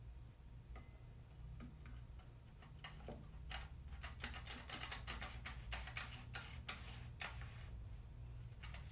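Light metal clicks and ticks as a CVT planetary gear drum is turned back and forth and pressed into the transmission case by hand, its teeth catching on the mating parts. The clicks are scattered at first, then come thick and fast from about three and a half seconds in until near the end.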